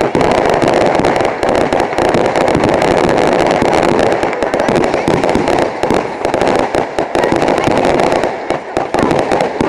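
Fireworks crackling in a dense, continuous barrage of rapid pops, many a second, with no break.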